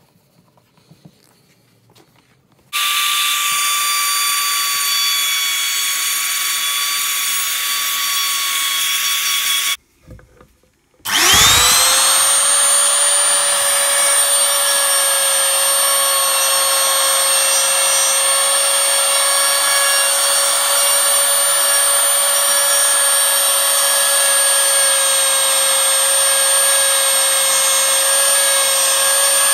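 Faint handling sounds, then a compact router carving pallet wood through a paper template with a steady high whine that starts suddenly about three seconds in. The router cuts off near ten seconds. About a second later it is switched on again, winds up quickly to full speed and runs steadily.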